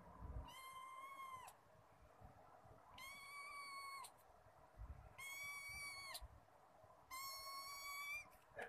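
Kitten meowing four times, each call high, steady in pitch and about a second long, a second or two apart.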